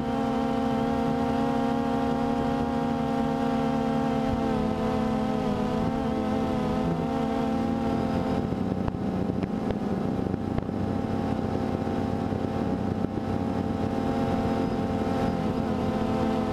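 DJI Phantom 2 quadcopter's electric motors and propellers buzzing steadily in flight, heard from the camera on board. A rougher rushing noise joins about halfway through.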